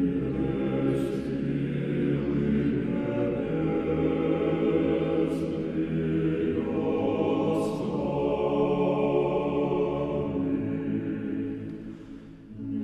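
Orthodox church choir singing unaccompanied chant in long held chords, with a few sung 's' consonants. The singing thins out near the end, then swells again.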